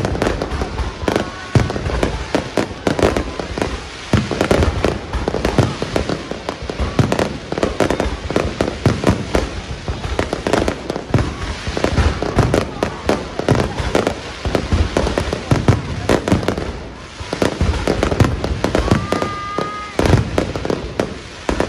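Aerial fireworks barrage: a rapid, continuous run of shell bursts, booms and crackles, with a brief lull about three quarters of the way through.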